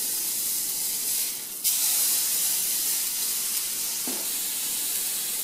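A marinated beef shoulder joint searing in a hot frying pan, sizzling steadily with a bright hiss. About a second and a half in, the sizzle drops for a moment and comes back louder. This is the browning stage before braising.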